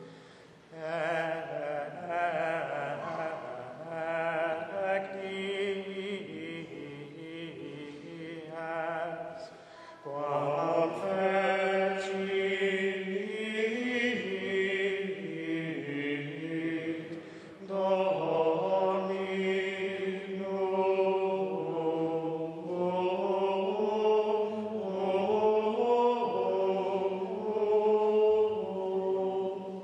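Choir singing Latin chant of the Mass in long phrases with brief breaks between them.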